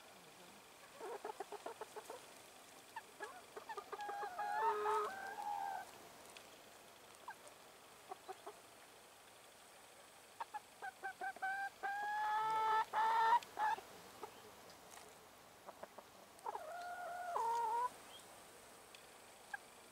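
Brown hens clucking in short runs, with three drawn-out pitched calls of a second or two each: one about five seconds in, one in the middle and one near the end.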